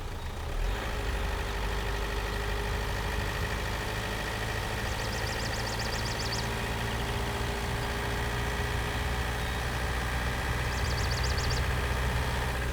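A vehicle engine running with a steady low rumble. Twice there is a short run of fast, high ticking.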